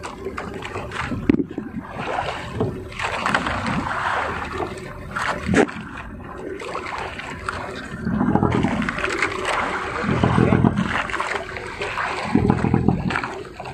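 Seawater rushing and sloshing along the hull and outrigger float of a small outrigger boat, an irregular splashing wash that swells louder a few times in the second half.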